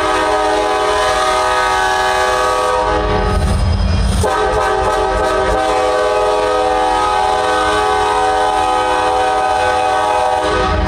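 CSX diesel locomotive's air horn sounding a steady chord in two long blasts, the second much longer than the first, starting about four seconds in, as the locomotives back into the yard.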